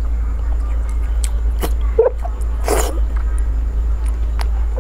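Eating sounds of a person biting and chewing soft braised pork belly: a handful of short, scattered wet mouth sounds over a steady low hum.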